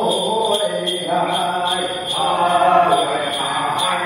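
Group of Amis singers chanting a ceremonial song together, several voices holding and shifting sustained notes, with faint regular clicks keeping time.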